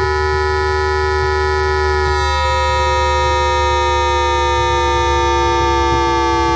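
Times Electric VVVF traction inverter, picked up with an inductor coil while the train decelerates: a chord of steady electronic tones sliding slowly down in pitch over a low hum. About two seconds in the tones jump to a new pattern as the inverter switches from synchronous wide-3-pulse to synchronous 5-pulse modulation.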